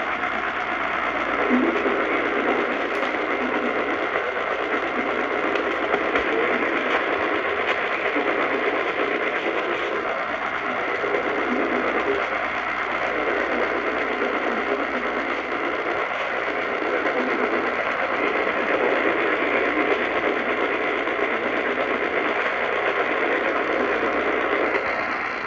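Steady radio static hiss from a receiver on a weak or empty signal, with faint swells underneath.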